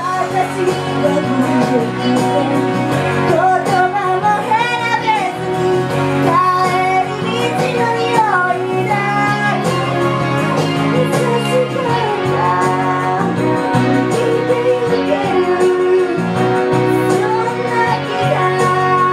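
Live pop music: female voices singing a melody over instrumental accompaniment with a steady bass line.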